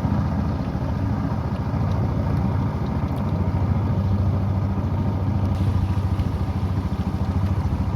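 Small river boat's engine running steadily, a low, fast-pulsing drone.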